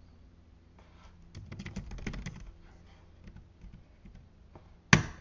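Typing on a computer keyboard: a quick run of keystrokes about one and a half seconds in, a few scattered single key presses, and one much louder sharp click near the end.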